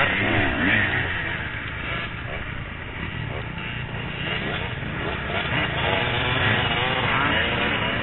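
Off-road motorcycle engines revving, the pitch rising and falling again and again.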